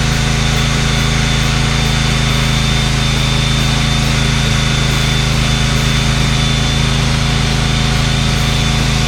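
Electric power sander running steadily on epoxy, a constant motor drone with a low hum and a thin high whine.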